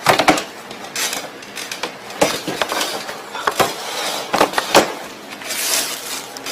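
Plastic milk crates being shifted and knocked against each other and the plastic pallets, a string of irregular knocks and clatters. Near the end comes a burst of rustling as a plastic-wrapped delivery bag is handled.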